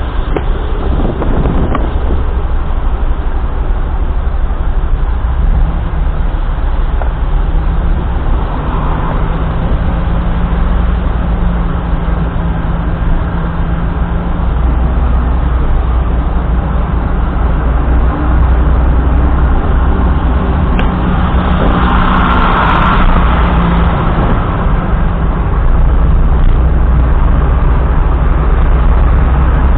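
A car on the move: a steady low engine and road rumble that gets a little louder toward the end, with a brief swell of brighter noise about two-thirds of the way through, like a passing vehicle.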